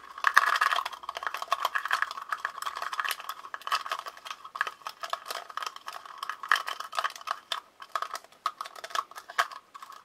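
Short piece of bicycle chain rattling and clinking against the inside of a small pot as it is worked around in GT85 spray to strip off its grease: a rapid, irregular run of small metal clicks.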